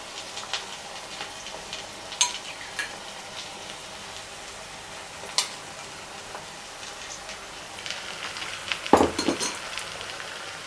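Eggs frying in a pan with bacon fat, a soft steady sizzle. A few sharp clinks of a metal spoon on a glass bowl as the yolks are slid in, and a louder clatter about nine seconds in.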